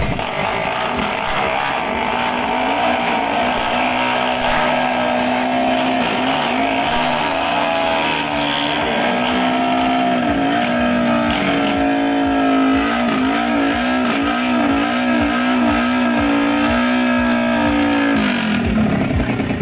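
Two small drag-racing motorcycles revving at the start line. Their engine pitch wavers up and down as the throttles are blipped and held, and near the end the steady tones give way to a rougher, noisier sound.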